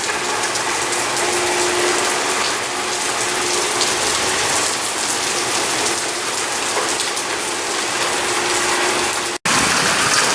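Heavy rain pouring down steadily, a dense hiss of drops drumming on surfaces. The sound cuts out for an instant near the end.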